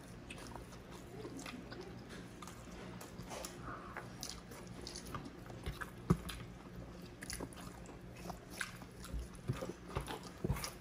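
Chewing and wet mouth sounds of people eating grilled chicken and rice with their hands, picked up close by clip-on microphones, with scattered soft clicks and smacks.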